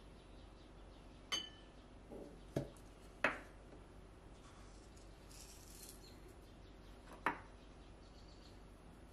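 Spice jars and their wooden lids being handled and set down on a bamboo cutting board: four sharp knocks, the first with a brief glassy ring, the loudest about three seconds in.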